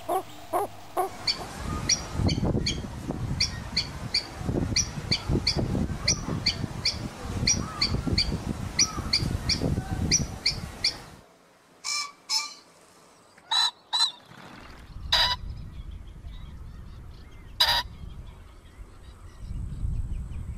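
Pheasant calls. First a quick series of short high notes, about two a second, over a steady low rumble; then, after a sudden break, several loud harsh calls, some in close pairs, spaced a second or more apart.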